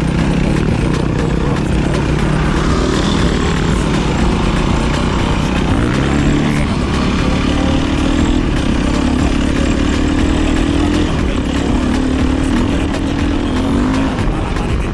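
450cc four-stroke single-cylinder dirt bike engine running under load off-road. Its pitch climbs about six seconds in, holds higher, and eases off near the end.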